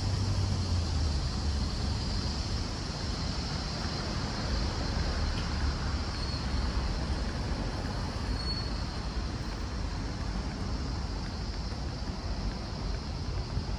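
Road traffic on a city street: a steady mix of vehicle engines and tyre noise with a low rumble, heaviest about the first second.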